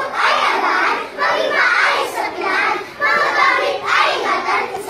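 A class of young children chanting a poem together in unison (sabayang tula, a choral recitation), in short rhythmic phrases about a second long.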